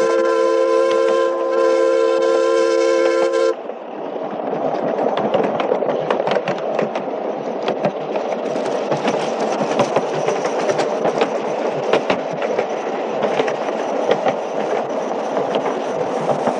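Miniature steam locomotive's chime whistle blowing one long steady note, which cuts off suddenly about three and a half seconds in. After that the train runs on with a dense rattle and many sharp clicks from the wheels on the track.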